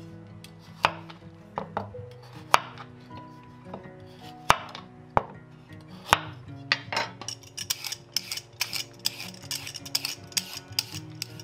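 Chef's knife slicing a carrot on a bamboo cutting board: a series of sharp chops, spaced roughly a second apart. About seven or eight seconds in, a vegetable peeler takes over, rasping down the carrot's skin in quick repeated strokes.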